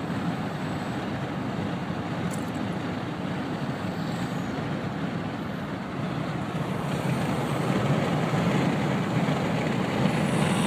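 Steady road and engine noise inside a moving car, growing somewhat louder about seven seconds in.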